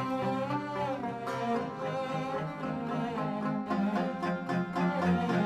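Background music with plucked and bowed string instruments playing a melody.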